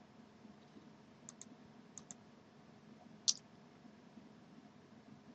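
Computer mouse clicks: three quick pairs of clicks, about a second apart, the third a little past three seconds in the loudest, over faint steady room hiss.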